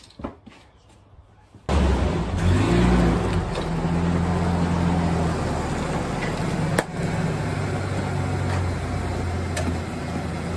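Pickup truck engine running steadily at idle, coming in suddenly about two seconds in with a brief rise in revs, then holding level. A sharp click sounds near the middle and a fainter one near the end.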